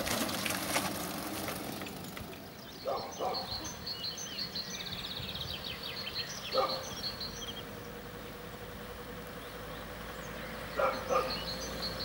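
Outdoor ambience: a small utility cart passes close by at the very start, then small birds chirp and a dog barks five times in three short groups, two, one, then two.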